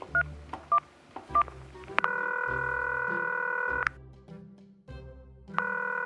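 Telephone keypad tones, about four quick dialing beeps, then the ringing tone of the call going through: one long ring, a pause, and a second ring starting near the end.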